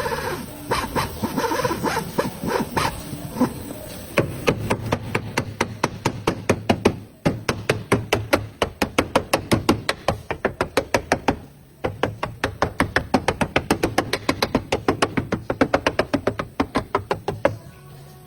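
Rapid, regular sharp knocks, about four to five a second, with two short pauses, like repeated hammering or tapping.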